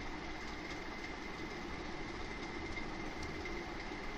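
Steady background noise with a faint, high, steady whine running through it, without any distinct events.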